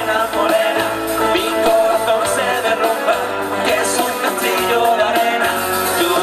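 Live rumba-rock band playing: drums, electric bass, and electric and Spanish guitars, with two male singers singing into microphones.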